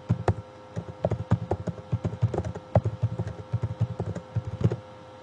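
Computer keyboard typing: quick, irregular runs of key clicks as short commands are typed and entered. A faint steady tone runs underneath.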